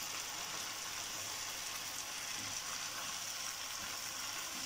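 Chicken and sliced bell peppers sizzling in a frying pan with a steady hiss as they are stirred with a spatula.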